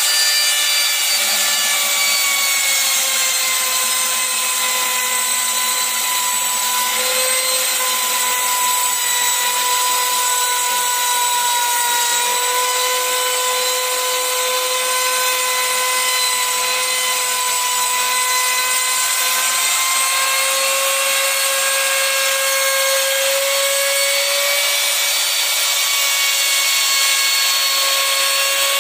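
Compact trim router running at high speed with a steady whine, its bearing-guided flush-trim bit cutting the overhanging edge of a formica laminate sheet flush with the tabletop. The pitch wavers slightly as the bit works along the edge.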